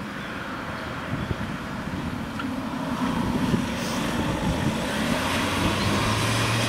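Volkswagen ambulance van driving past and turning at a junction, its engine and tyres growing louder as it comes near, with wind on the microphone.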